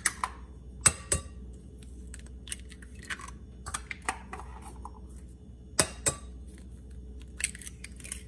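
Eggs being cracked against the rim of a glass bowl: a pair of sharp taps of shell on glass about a second in and another pair near six seconds, with lighter shell clicks between.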